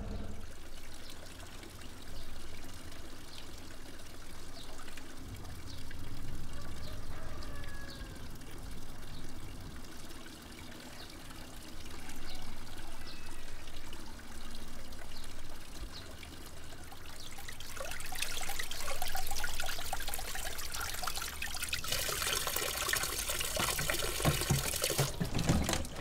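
Water running from a wall tap into a large plastic water bottle. It starts a little past halfway through and gets markedly louder about four seconds later. Before it there is only quiet outdoor ambience with a low rumble.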